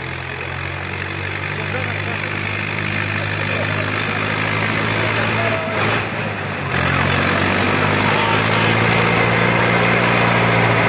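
Old diesel tractor engine running hard under load as the tractor churns through deep mud, throwing out black smoke. Its steady drone grows louder as it comes closer, with a brief dip about halfway through.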